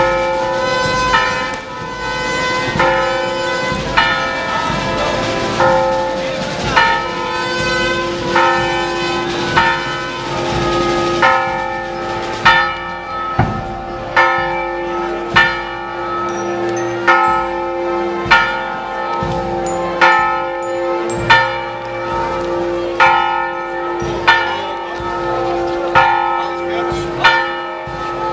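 Church bells ringing, struck over and over about once a second, their hum carrying on between strikes.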